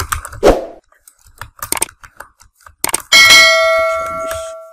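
Computer keyboard typing clicks, then about three seconds in a subscribe-button sound effect: a click and a loud bell ding whose ringing tones fade over about a second and a half.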